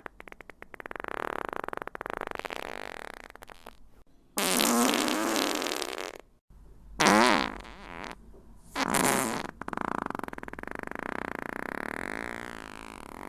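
A string of fart sound effects of different lengths, one after another: a long sputtering one, several short loud blasts, then a long drawn-out one whose pitch falls near the end.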